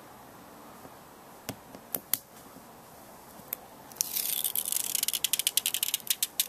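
Hands working small parts of a windscreen repair kit: a few separate sharp clicks and taps, then a rapid run of clicking with a scratchy hiss for about two seconds near the end.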